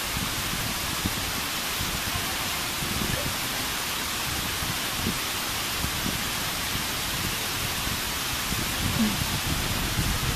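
Steady downpour of rain, an even dense hiss.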